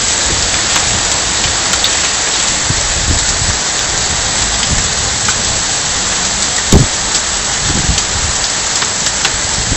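Heavy downpour pouring onto a street and foliage, a dense steady hiss of rain. A single sharp thump stands out about seven seconds in.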